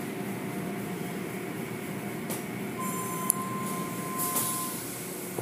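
Automatic car wash tunnel running: a steady mechanical rumble and hiss of its brushes, cloth curtains and water spray working over a car. A faint steady tone sounds for about two seconds in the middle, with a sharp tick or two.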